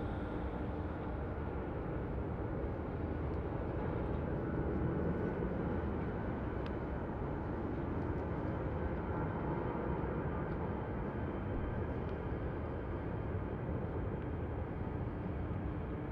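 Jet airliner's engines at takeoff power as it departs, a steady rumble that swells slightly a few seconds in.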